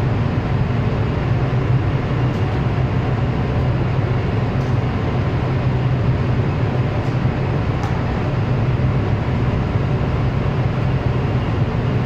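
Large diesel generator set running at a steady speed, a loud constant engine drone with a deep hum.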